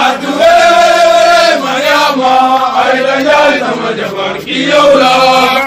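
Senegalese soldiers' military chant: a group of men's voices singing together in long held phrases, about four of them with short breaks in between.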